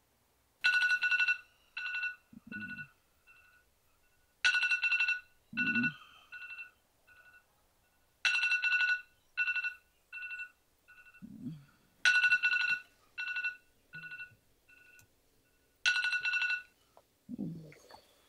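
Smartphone electronic ringtone going off unanswered: a bright two-note chime phrase repeating about every four seconds, each loud burst followed by fainter echoing repeats. Short low groans come between the phrases.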